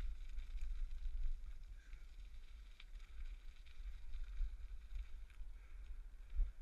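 Riding noise picked up by a GoPro on a moving bicycle: steady low wind rumble on the microphone, with a faint hiss of tyres rolling over the path and a few small clicks and rattles.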